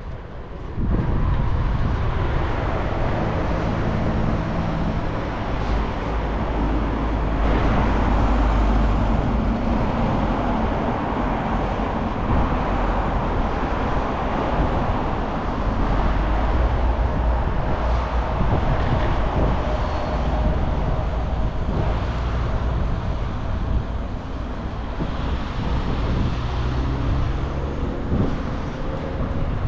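Steady rumble of riding a bicycle: wind buffeting the camera microphone together with rolling noise. It gets much louder about a second in and then holds.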